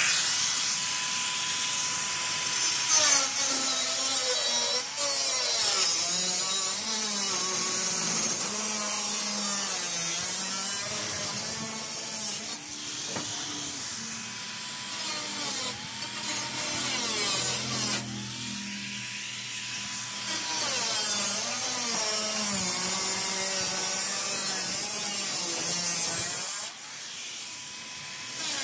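Angle grinder cutting through sheet-metal tin roofing. The motor's whine sags in pitch each time the disc bites into the metal and climbs back when it runs free, over a harsh hiss from the cut, and it eases off briefly near the end.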